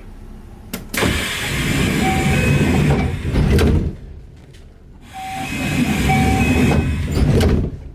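Kintetsu train door-closing sequence: a click, then a loud rush of air and rumble as the sliding doors close, with a faint door chime of short alternating high and low beeps over it. It dies down about four seconds in, and the same sequence runs again.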